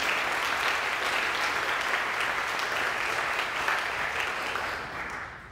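Congregation applauding, a dense crackle of many hands clapping that fades out near the end.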